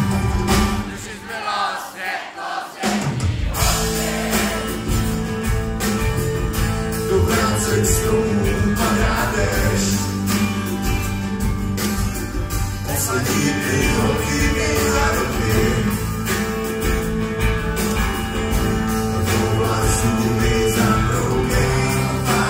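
Live rock band playing through a venue's PA, heard from the audience: guitars, drums and singing. The bass and drums drop away for about two seconds near the start, then the full band comes back in.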